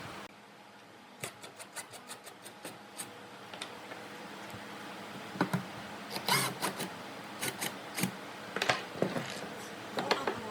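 Workshop handwork on wood: a quick run of light clicks, about four a second, then several louder, irregular knocks and scrapes.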